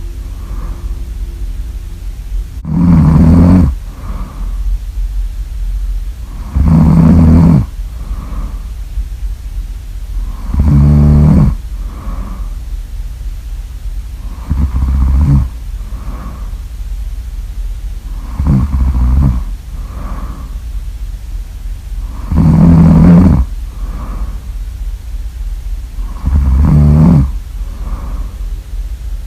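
Really loud snoring in a steady rhythm: a long rasping snore about every four seconds, seven in all, each followed by a shorter, fainter breath out. A low steady hum runs underneath.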